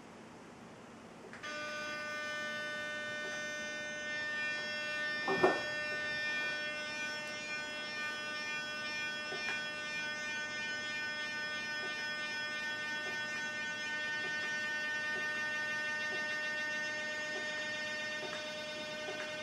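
A steady buzzing chord of several tones starts about a second and a half in and holds on. It is the audio signal that drives the homemade laser galvanometer, made as the laser dot begins tracing a looping figure. A brief thump comes about five seconds in.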